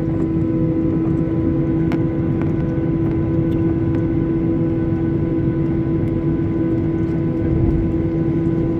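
Steady jet-engine hum and cabin drone inside a Boeing 737-800 as it taxis on low engine power, with a few faint steady tones and light ticks. Near the end there is a brief low rumble.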